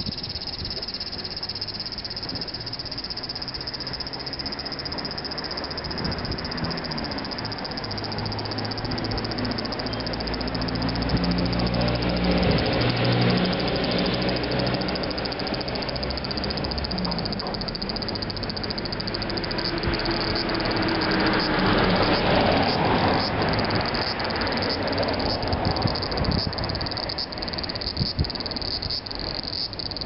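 Cicadas singing in a tree, a steady high-pitched shrilling. A motor vehicle's engine passes nearby twice, swelling and fading near the middle and again about two-thirds of the way through.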